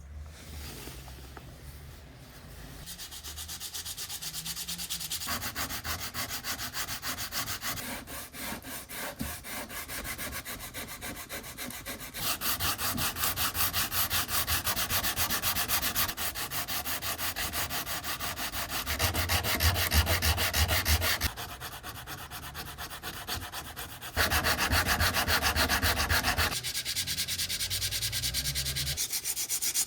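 Sandpaper rubbing over wood in quick, even back-and-forth strokes. The strokes get suddenly louder or softer several times.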